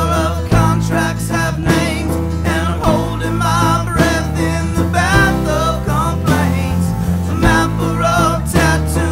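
Recorded band music: a song with guitar and a wavering melody line over steady bass notes.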